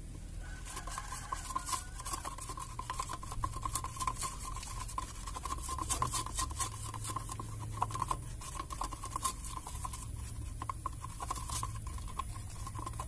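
Wooden stick stirring and scraping around inside a small can of melted rubber, giving irregular quick scrapes and clicks, as raw liquid rubber latex is mixed in to make birdlime.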